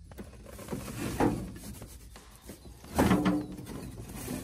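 Clunks, knocks and scraping as an old truck's bench seat is worked loose and pulled from the cab, with two louder bangs about a second in and about three seconds in.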